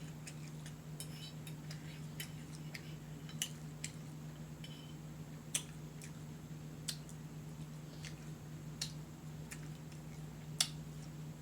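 Close-miked chewing with irregular wet mouth smacks and lip clicks, a few of them sharper, over a steady low hum.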